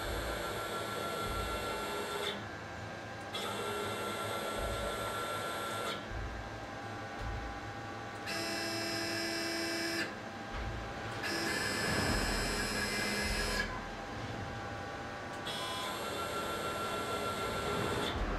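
6090 CNC router's stepper motors driving the freshly rebuilt X axis on a test run, moving the spindle carriage in about five separate moves. Each move is a steady whine a couple of seconds long, its pitch different from the last, with short pauses between moves.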